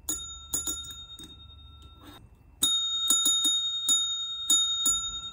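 A single bright bell rung in quick repeated strikes, always at the same pitch. A few strikes come first; then, from about halfway, a longer run of strikes follows, the ringing hanging on after the last one.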